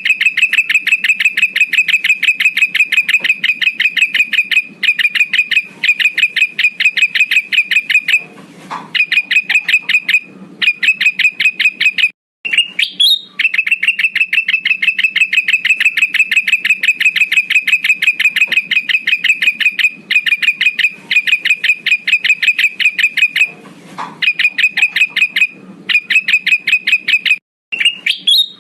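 Male kutilang emas (bulbul) lure call: a loud, very fast trill of short notes at one steady pitch. It comes in long runs of several seconds with brief breaks, and two quick rising notes cut in, about halfway and near the end. It is the call played to draw rival males.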